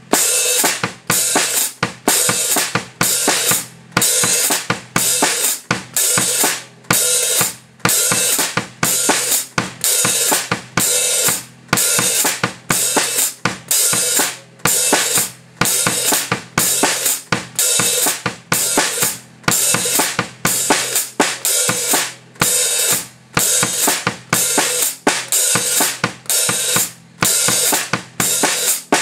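Drum kit played in a steady groove: bass drum and snare play written figures under a hi-hat that opens and closes in an even rhythm, each open sizzle cut short when the foot pedal shuts it.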